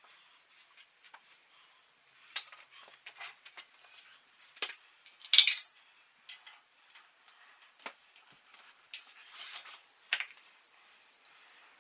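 Irregular metallic clicks and clinks of hand tools and bicycle parts being handled, one louder clank about halfway through.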